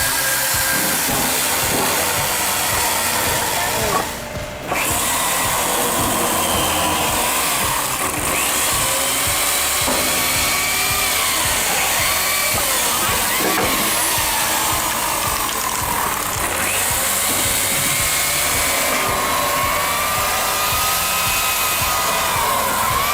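Machinery running loudly with a whine that wanders up and down in pitch, with a brief drop in sound about four seconds in.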